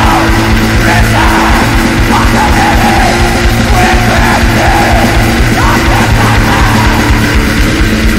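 Black metal track: rapid, dense drumming and sustained distorted guitar under harsh yelled vocals, the voice dropping out about six seconds in.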